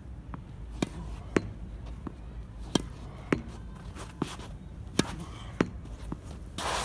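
Tennis ball hit back and forth against a practice wall: a string of sharp pops as the ball meets the racket strings, the wall and the court, often in pairs about half a second apart. A brief scrape comes near the end.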